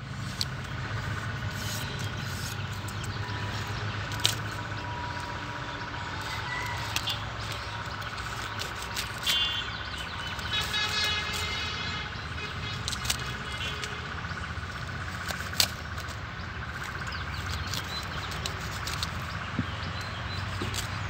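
A knife cutting into a fresh cauliflower head, with scattered sharp cracks as it goes through the stalks and florets. Underneath is a steady low hum, and a short pulsing chirp comes about halfway through.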